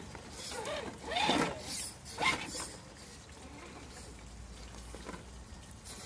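Small electric RC rock crawler whirring in two short throttle bursts in the first half while its tires scrabble over rock, then running faint and steady.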